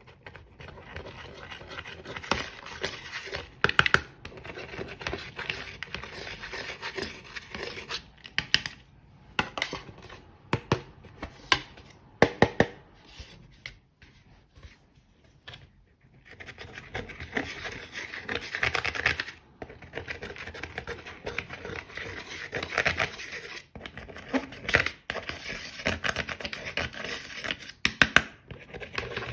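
Slime being squished and stretched by hand: sticky crackling with many sharp pops, pausing briefly about halfway through.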